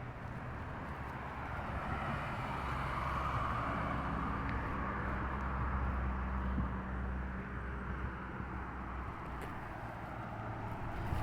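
A motor vehicle passing on a street: engine hum and tyre noise build up about two seconds in, hold for several seconds, then fade away.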